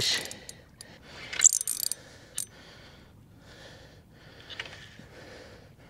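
Fishing reel being wound in against a hooked snapper: the reel's gears whirr in short spells between pauses, with a few sharp clicks.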